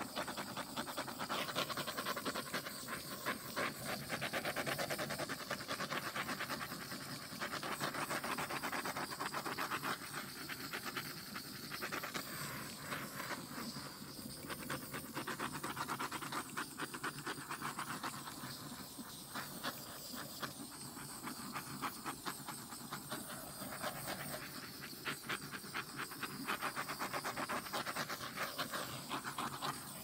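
Handheld butane torch flame hissing steadily as it is passed over wet acrylic paint to pop air bubbles.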